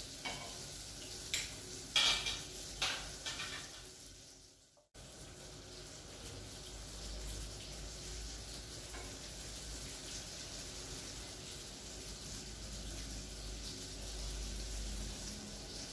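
Doughnut dough frying in hot oil in a frying pan: a steady sizzle. A few sharp clicks come in the first three seconds, and the sound drops out briefly about five seconds in.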